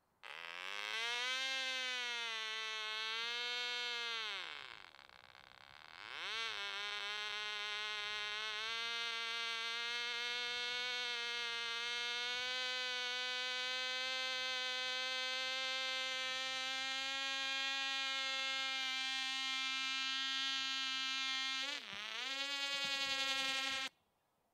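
A tiny .049 model airplane engine running flat out with a high, buzzy whine. Its pitch wavers at first, sags and fades for a couple of seconds, then holds steady for a long stretch, dips briefly near the end and cuts off suddenly.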